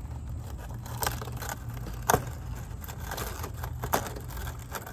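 Red plastic mesh netting crackling and rustling as fingers press and pull at it, with a few sharp clicks, the loudest about two seconds in. A low steady rumble runs underneath.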